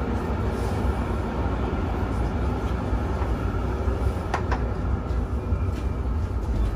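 Tram running along its rails, a steady low rumble of wheels and motors heard from inside the car, with a pair of short sharp clicks about four seconds in.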